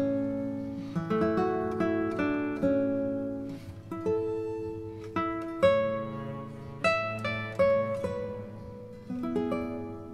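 Music of plucked strings, most like an acoustic guitar: notes and chords picked one after another and left to ring out.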